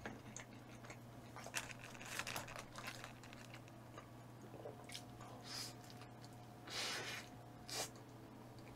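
A person chewing food, faint, with a few soft crunches scattered through and a brief louder crunch about seven seconds in, over a steady low hum.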